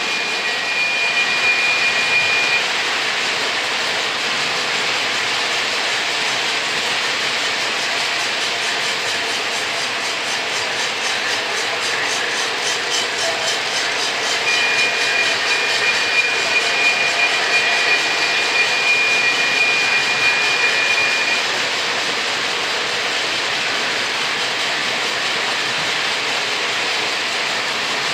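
Lionel O gauge model trains running on three-rail tubular track: a steady rolling rumble of wheels on metal rail. A high, steady tone sounds twice over it, briefly near the start and for about seven seconds in the middle.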